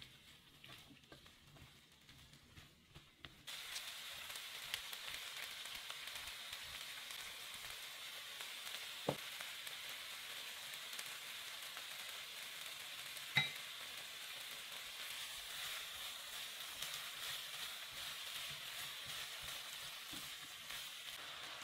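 Sliced zucchini and sweet peppers frying in oil in a pan. After a quiet start with soft clicks, a steady sizzle sets in suddenly about three and a half seconds in, and a spatula knocks sharply against the pan twice.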